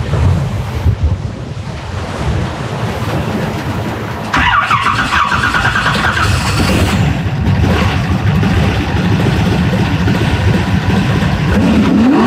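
Twin-turbocharged V8 jet boat engine running under way on the water. It gets louder about four seconds in, with a high whine for a couple of seconds, and near the end a pitch sweeps up and back down.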